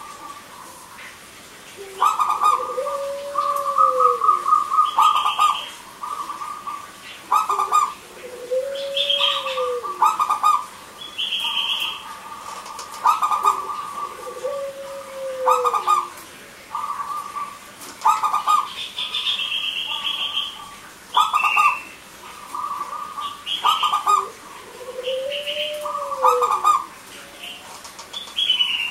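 Zebra doves (perkutut) cooing: repeated phrases of quick clipped coos, with a lower rising-then-falling coo every five or six seconds and short higher chirps mixed in.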